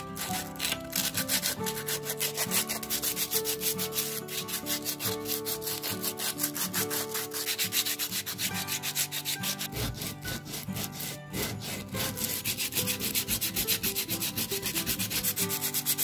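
Sandpaper rubbed by hand over a coconut shell half, rasping in quick back-and-forth strokes as the fibrous husk is sanded smooth.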